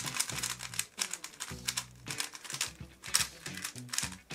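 Valk3 Power M magnetic 3x3 speed cube being turned quickly by hand, its layers making a fast run of light clicks. Background music plays underneath.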